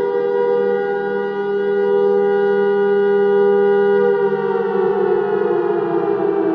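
Civil defense warning siren sounding a steady, chord-like tone, then winding down with its pitch falling slowly from about four seconds in.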